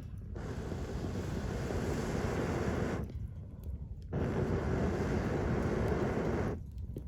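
Wind and surf rushing on an open shore, buffeting the microphone. The noise thins out briefly about three seconds in and again near the end.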